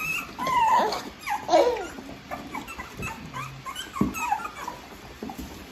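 Litter of three-week-old American Bully puppies whimpering and squealing: several high, arching cries in the first couple of seconds, then fainter, scattered whines.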